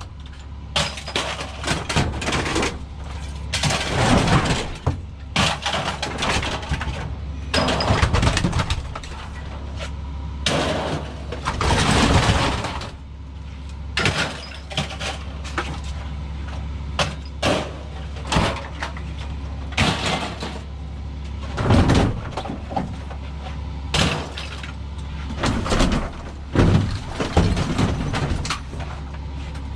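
Scrap being handled and thrown about: a long run of irregular clanks, bangs and crashes, some drawn out and some single sharp hits, over a steady low hum.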